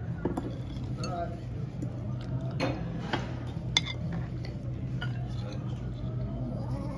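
Restaurant dining-room ambience: a steady low hum and faint voices, with a few sharp clinks of a metal fork against a plate.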